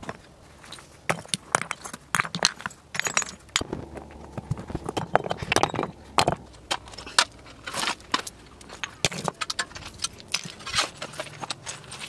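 Stones knocking and clinking together as they are picked up, carried and set down, with footsteps on loose rocky ground: an irregular run of sharp clicks and knocks.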